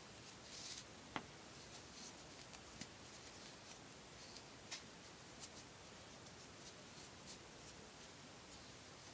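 Faint handling sounds of cords being worked through a knot by hand: soft rustles and scattered light clicks over a steady hiss, with one sharper click about a second in.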